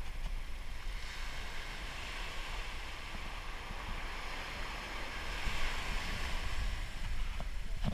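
Small surf breaking and washing up the beach at the water's edge, the wash swelling about five to six seconds in. Wind rumbles low on the microphone.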